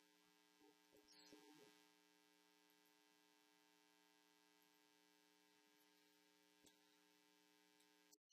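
Near silence: a faint steady electrical hum with several evenly spaced tones, with a few soft clicks and knocks about a second in. The hum cuts out just before the end.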